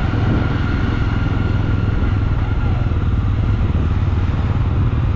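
Jawa 42 motorcycle's single-cylinder engine running steadily under way, heard from the rider's seat.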